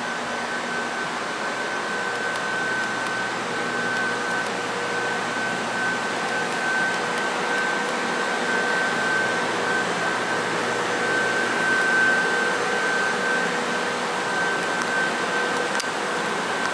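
Steady whir of a parked electric train's rooftop air-conditioning equipment running, with a constant high whine over it.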